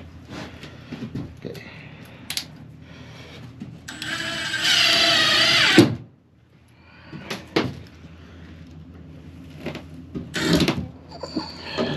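Power drill driving screws: one loud whine of about two seconds that stops abruptly, and another starting near the end. Sharp knocks and clatter from handling come in between.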